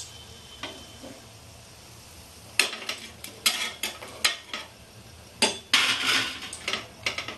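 Metal slotted spatula clinking and scraping against the kadai and the steel stovetop. After a quiet start, a quick run of sharp clinks begins about two and a half seconds in, with a longer scrape around six seconds.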